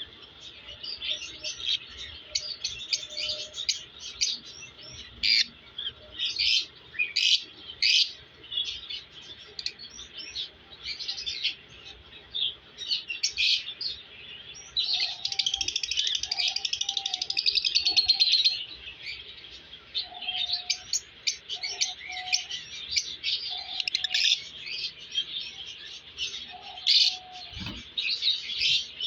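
Pet parrots chirping and chattering in many short, high calls, with a denser, buzzy stretch of warbling about halfway through and some lower short calls mixed in later.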